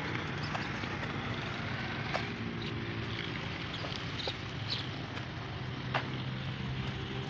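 Outdoor background noise: a steady rush with a faint low hum, broken by a few scattered sharp clicks.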